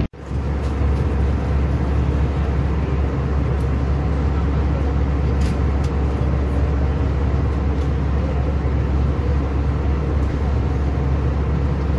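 Steady low rumble and rush of an Airbus A319's cabin in flight, from the wing-mounted turbofan engine and the airflow over the fuselage. The sound cuts out for an instant at the very start, then holds steady.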